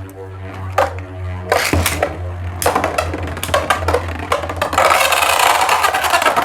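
Two spinning battle tops clashing and grinding together in a plastic stadium, a dense rattle of clicks that builds and gets loudest about five seconds in.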